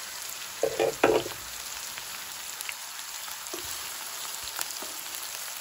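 Onion, tomato and garlic frying in hot oil in a pan, a steady sizzle. A couple of loud knocks come about a second in, with a few faint clicks later.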